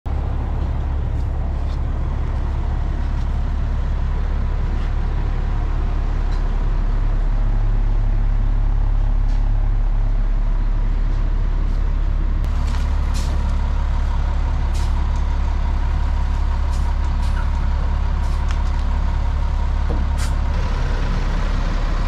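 Diesel chip truck's engine running steadily, with scattered light clicks and knocks over it.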